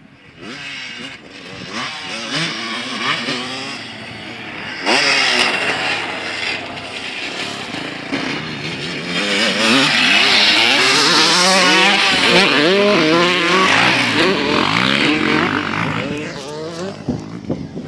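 Motocross bikes riding past on a dirt track, their engines revving up and down through the throttle and gear changes. The sound jumps up about a quarter of the way in, is loudest past the middle as the bikes come close, and fades near the end.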